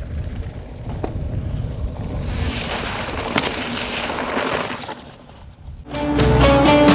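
Wind rumbling on the microphone, then a mountain bike riding through a puddle: a splash and the hiss of tyres through water and wet gravel for about three seconds. About six seconds in, guitar rock music starts abruptly.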